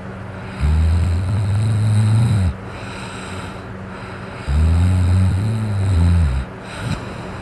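A person snoring while asleep drunk: two long, low snores about four seconds apart, each lasting about two seconds, with quieter breathing between them.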